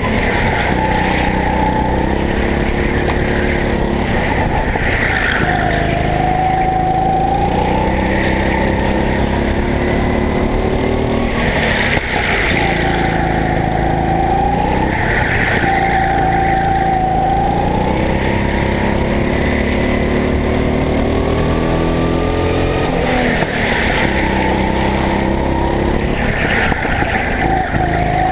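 Go-kart engine heard from on board, its pitch rising and falling every few seconds as the kart accelerates out of corners and lifts for the next, with tyres scrubbing and squealing through the turns.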